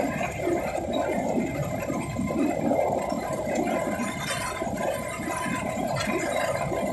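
Motorcycle tricycle on the move: its small engine running under a steady, rough rush of wind and road noise on the phone's microphone.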